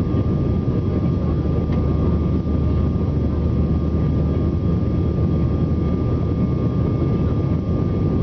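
Airbus A320 cabin noise in flight shortly after take-off, heard from a seat over the wing: the jet engines and rushing air make a steady low rumble with a faint steady whine above it.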